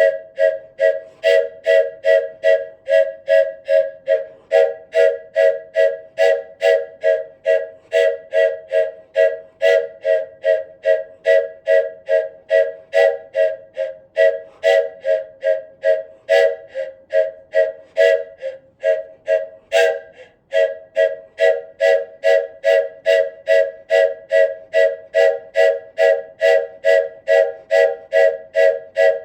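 Wooden train whistle sounding its chord of several close pitches, pulsing in an even rhythm about three times a second and breaking off briefly about twenty seconds in.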